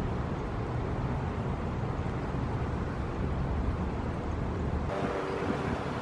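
Steady low outdoor rumble, with no bird calls heard. A faint steady hum joins about five seconds in.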